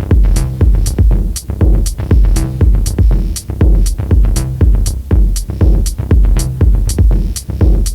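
Instrumental electronic music: a drum-machine beat with a heavy kick about twice a second, offbeat hi-hat ticks and a bass line, with no vocals.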